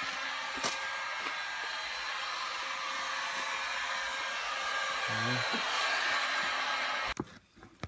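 Heat gun blowing steadily while warming vinyl tint film on a headlight so it shrinks to fit. It cuts off sharply about seven seconds in.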